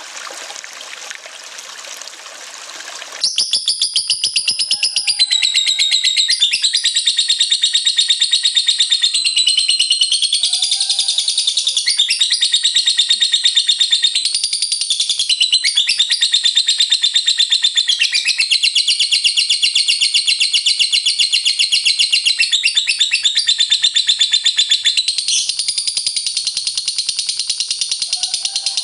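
Running water for about three seconds, cut off abruptly as a lovebird breaks into its long ngekek chatter: a very rapid, high-pitched trill that goes on without a pause, shifting in pitch now and then.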